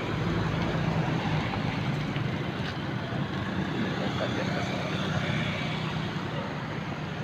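Steady low engine rumble of road traffic, with faint voices mixed in, slowly fading toward the end.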